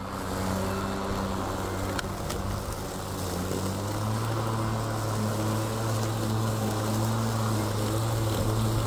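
Matrix brushless 40V cordless lawn mower running: a steady motor hum under a rush of air from the spinning blade, the hum rising slightly about four seconds in.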